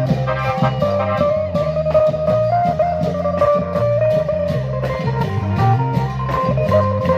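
Klong yao (Thai long-drum) procession band playing lively music: a steady, even drum beat with a sustained melody line over it.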